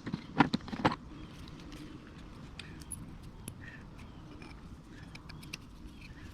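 Three sharp metal clicks in the first second, then scattered light ticks: a steel tap and a rusty nut being handled and set together to clean the nut's threads.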